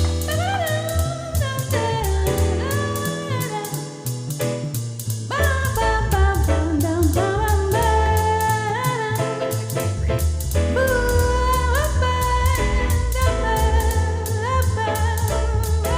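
A song playing: a vocal melody with wavering held notes over a steady drum beat and bass.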